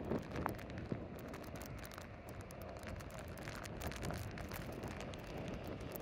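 Large Lake Superior storm waves breaking on a rock breakwall, a faint steady rush of surf and wind, with many small crackling ticks scattered through it.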